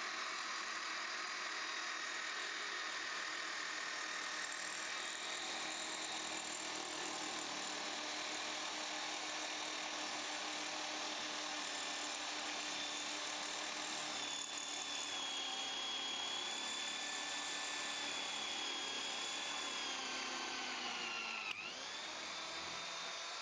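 A small electric power tool running steadily with a motor whine. Near the end its pitch sags as it is loaded, then comes a sharp click and the pitch climbs back.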